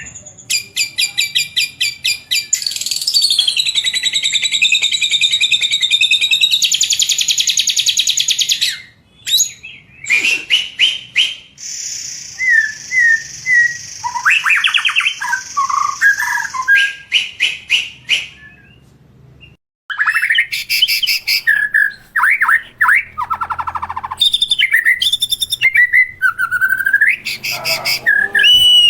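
A murai songbird singing a long, varied song of rapid trills, buzzy rattles and sweeping whistled notes, with short breaks about nine and twenty seconds in.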